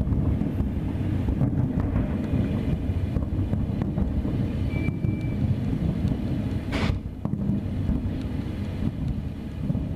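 Aerial fireworks shells bursting in quick succession, making a dense, continuous low rumble of booms, with one sharp crack about seven seconds in.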